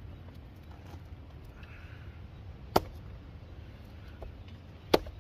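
Two sharp knocks a little over two seconds apart, over a low steady rumble.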